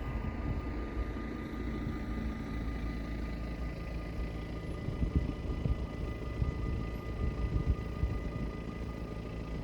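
Dutch level-crossing bells ringing continuously, a steady high ringing, with a low rumble underneath that swells briefly about five and seven and a half seconds in.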